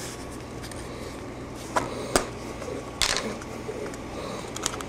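A few light clicks and knocks of small plastic Play-Doh tubs being handled, about two and three seconds in, over a low steady hum.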